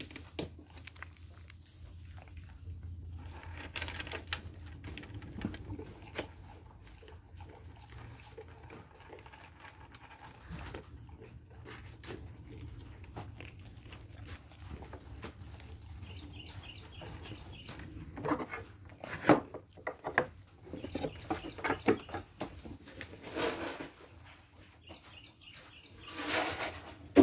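Nigerian Dwarf goats bleating now and then, with scattered knocks and rattles of a chain-link pen gate and barn fittings in the second half, and a louder knock of the gate near the end as it is handled.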